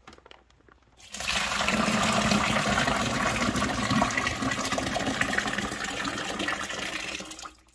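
Apple juice and sugar mixture with chopped peaches pouring in a steady stream from a stainless steel stockpot into a plastic bucket, splashing as it fills. The pour starts about a second in and tapers off near the end.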